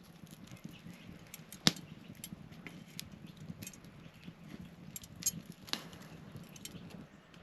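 Scattered light clicks and taps, the sharpest about a second and a half in, over a faint low hum.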